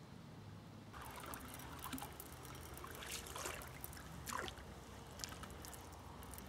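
Fishing rod and reel being handled as line is wound in, with irregular ticking and rustling from the reel and rod. There are two louder brief swishy splashes about three and four and a half seconds in.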